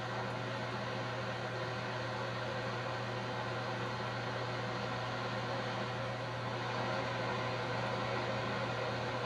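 Steady drone of a vehicle's engine and road noise heard inside the cabin through an old camcorder's soundtrack, with a constant low hum and an even hiss.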